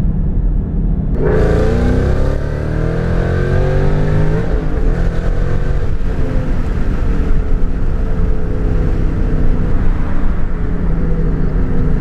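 Whipple-supercharged Ford Mustang GT V8 under wide-open throttle through a Corsa Extreme catback exhaust, heard from the cabin with the driver's window down. It comes on hard about a second in and climbs in pitch through third gear, shifts up about four and a half seconds in, and keeps pulling in fourth.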